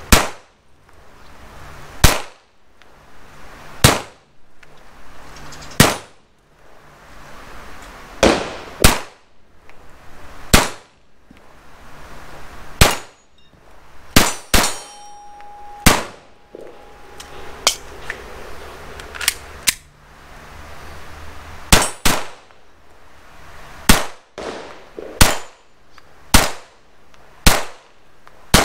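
Glock 44 .22 LR pistol firing slow, deliberate single shots: about twenty sharp cracks, one every one to two seconds, each with a short echo. A steady ringing tone follows a shot about halfway through.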